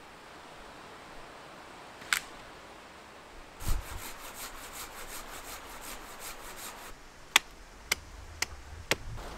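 Hand saw with a curved blade cutting through a green branch in quick, even strokes, then a hatchet chopping into a small wooden stem: four sharp strikes about half a second apart near the end. One single sharp knock comes about two seconds in.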